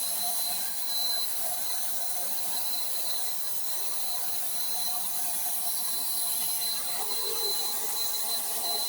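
Handheld electric paint spray gun running and spraying water: a steady, even hiss of air with a thin high tone over it.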